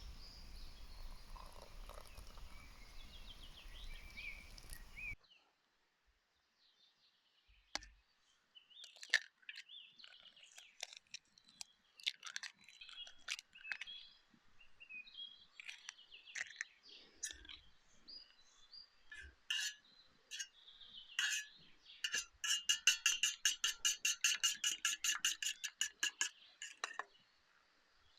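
Steady hiss for the first five seconds, then a sudden cut. After that come scattered bird chirps and calls, and near the end a rapid trill of about ten notes a second that lasts some five seconds.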